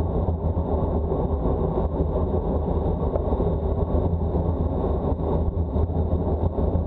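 Steady low rumble of a vehicle in motion, even throughout with no distinct events.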